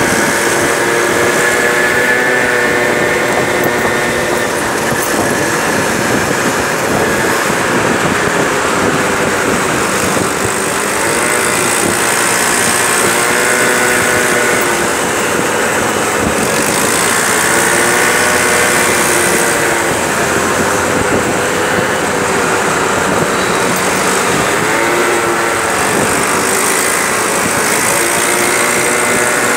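Peugeot Jet C-Tech 50cc scooter engine running under way in traffic, its pitch rising and falling again and again with the throttle, over a steady noisy rush.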